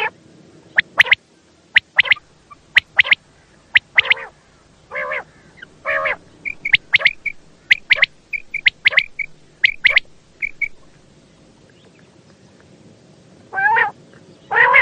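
Quail calling: a quick string of short, sharp call notes mixed with several longer, fuller calls, and a run of small high notes in the middle. A pause of a couple of seconds near the end is followed by two more longer calls.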